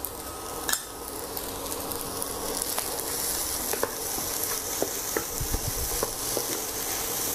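Fried rice sizzling in a nonstick pan while a wooden spatula stirs and scrapes it, with scattered light knocks of the spatula against the pan. The sizzle grows louder about three seconds in.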